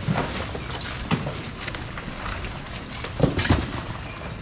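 Busy market background noise with scattered knocks and clatter, the loudest a pair about three seconds in.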